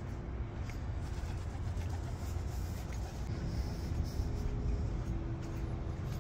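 Steady low rumble of street traffic, with a faint engine hum coming in about halfway through.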